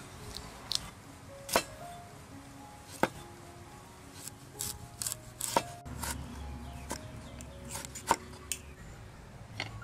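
Cleaver slicing a carrot on a wooden chopping board: sharp, irregular knocks of the blade against the board, about one a second, over soft background music.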